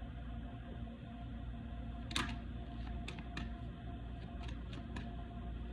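A steady low background drone with a few faint sustained tones, and about six light, sharp clicks or taps scattered through the middle, the loudest about two seconds in.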